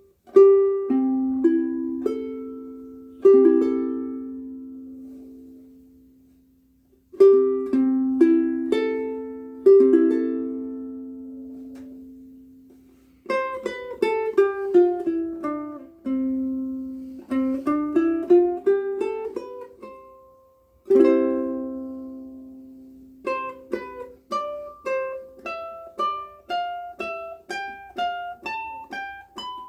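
Koaloha Opio ukulele with Kamaka Black Nylon strings played solo: plucked chords left to ring and fade, then quick runs of single notes falling and rising, then a picked melody of short notes climbing in pitch near the end.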